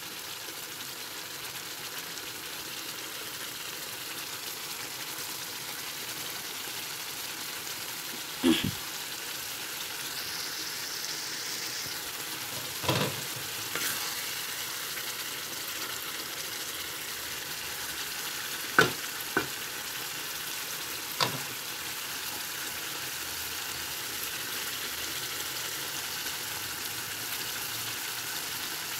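Thick, oily pickle sauce sizzling and bubbling steadily in a karahi over a gas flame that has just been turned up, as it cooks down near the end of cooking. A wooden spatula stirs it and knocks sharply against the pan a few times in the middle of the stretch.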